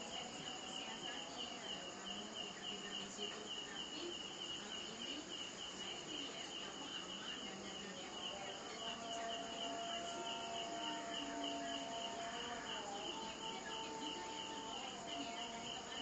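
A cricket chirping in a fast, even, unbroken pulse, over the faint steady hiss of an aquarium waterfall.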